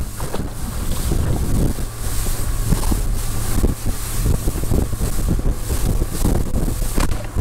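Strong wind buffeting the microphone while choppy waves slap and splash against a fishing boat's hull, a constant low rumble broken by irregular knocks.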